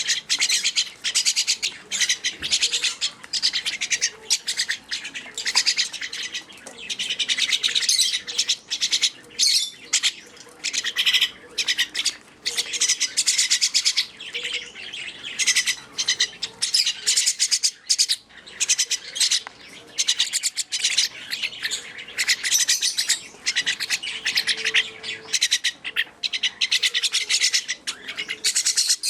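Two baby mynah birds giving harsh, raspy begging calls in rapid runs with short pauses, while being hand-fed from a spoon.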